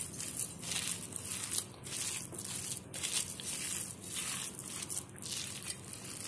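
A hand kneading a thick, coarse batter of raw ground tapioca and soaked chana dal with chopped onion and herbs in a steel bowl: irregular soft crushing strokes, about two a second, as the mixture is squeezed and turned.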